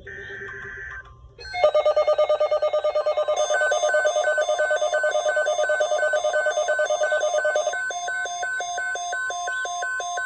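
Emergency Alert System SAME header: the last of three one-second digital data bursts, then a weather radio's alert alarm starting about one and a half seconds in. The alarm is a loud, rapidly pulsing electronic beeping whose pattern changes near the end.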